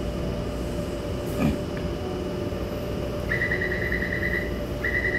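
Metro station platform rumble and hum, joined a little over three seconds in by rapid high electronic warning beeps in two bursts.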